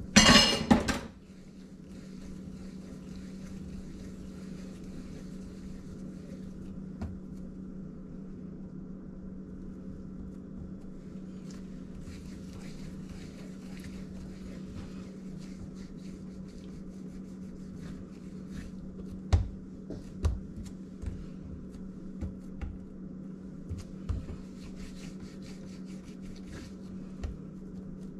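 Hands rolling and shaping soft bread dough on a silicone mat on a counter, with a run of soft thuds against the counter in the last third, over a steady low hum. A loud clatter lasts about a second at the very start.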